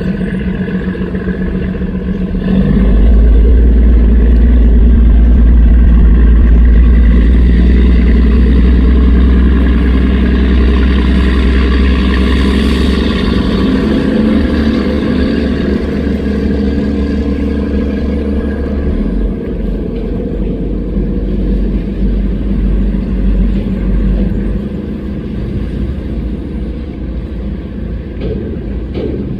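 High-powered speedboat engines running hard with a deep, loud rumble. It swells suddenly about three seconds in and eases off in two steps in the second half.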